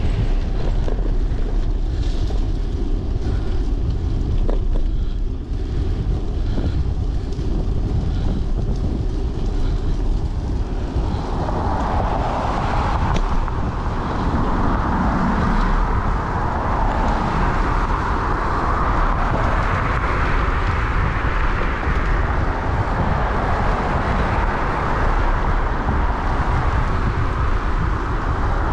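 Wind rumbling on an action camera's microphone on a moving bicycle, with road traffic. About eleven seconds in, a steady hiss of tyres on the wet road comes in and stays.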